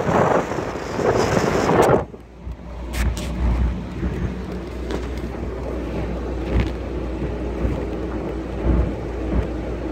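Wind buffeting the microphone over the noise of an old car driving along, cutting off suddenly about two seconds in. The car's engine and road noise then go on as a steady low drone, with a few short bumps.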